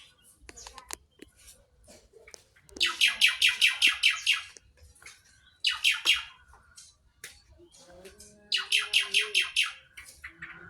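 Javan pied starling (jalak suren) calling: three loud bursts of rapid, repeated down-slurred notes, each a second or two long, with softer chips in between.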